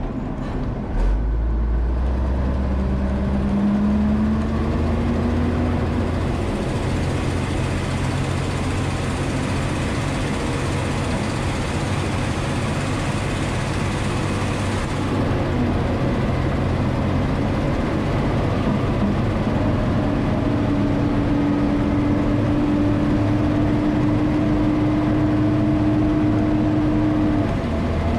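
Cab-interior sound of an M936A2 military wrecker's Cummins 6CTA8.3 turbo-diesel pulling the truck down a road. The engine note rises as the truck accelerates a couple of seconds in, then holds steady at cruise. A steady higher whine rides over it through the second half and drops away shortly before the end.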